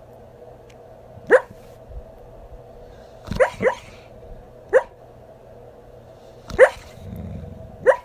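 A sleeping dog dream-barking: about six short, muffled woofs and yips, two of them in quick succession in the middle, with a low rumble near the end.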